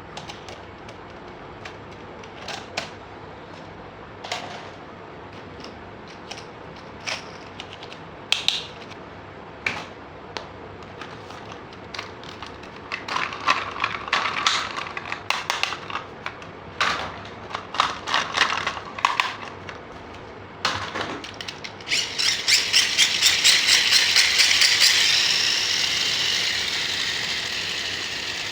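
Plastic toy parts being handled, clicked and snapped together: scattered clicks at first, then a busier run of clicking and rattling. Near the end comes a fast string of clicks that turns into a loud whirring rattle and slowly dies away.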